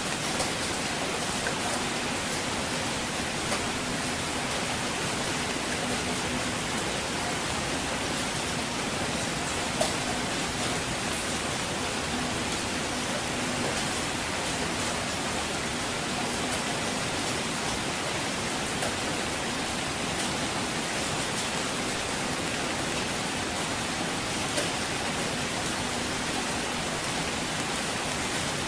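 Steady rain, an even hiss with a few sharper drop ticks now and then.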